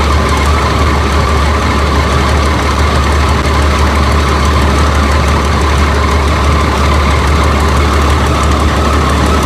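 Rice combine harvester's diesel engine running steadily with a loud, even drone.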